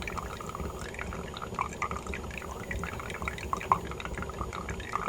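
Freshly brewed espresso from a Mr. Coffee steam espresso machine trickling and dripping into its glass carafe, with irregular small drips and splashes over a low steady rumble from the machine.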